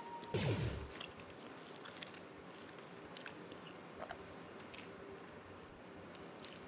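Faint, scattered crackles of a crisp fried seaweed chip (gim-bugak) being broken apart by hand in a hushed room. A brief downward-sliding tone sounds about half a second in.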